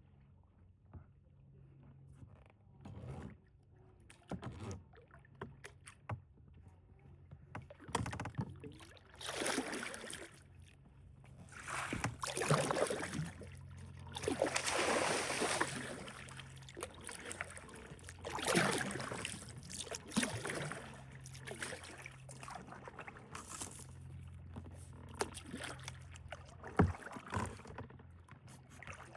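Kayak paddle strokes in swamp water: a run of irregular swishing splashes as the blades dip and pull, loudest through the middle stretch.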